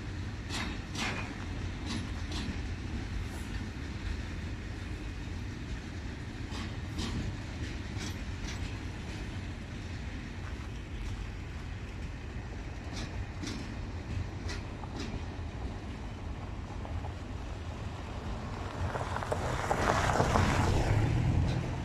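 Loaded freight flat wagons rolling slowly along the track with a steady low rumble, their wheels clicking over the rail joints in scattered clusters. A louder rush of noise swells near the end.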